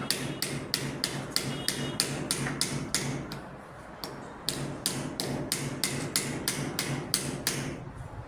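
Rapid, even knocking, about three to four sharp strikes a second, pausing for about a second midway and stopping near the end.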